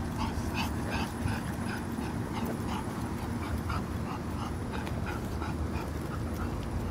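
A pug whimpering in short, high, repeated whines, about two or three a second, over a steady low rumble.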